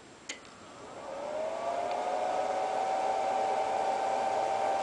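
A click as power is switched on, then a variable-frequency drive's cooling fan spinning up: a rising whine that levels off into a steady whir.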